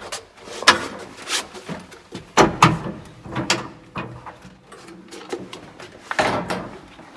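Irregular metallic knocks and clanks from a small bunker lift and its door while it carries people down a deep shaft, with the loudest knocks about two and a half seconds in and again near the end.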